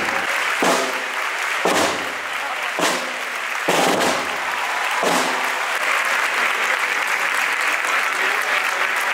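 Large crowd applauding steadily, with a few louder thumps about once a second during the first five seconds.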